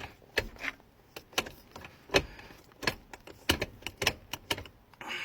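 Manual gear shifter of a 1992 Nissan 300ZX being worked by hand: a run of sharp, irregular clicks and knocks, two or three a second.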